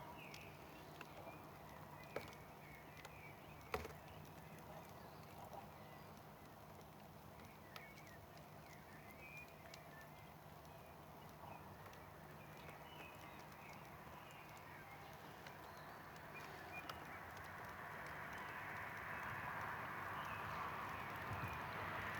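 Campfire burning quietly, with scattered small crackles and two sharper pops about two and four seconds in; faint chirps sound in the background. A rushing noise swells over the last few seconds.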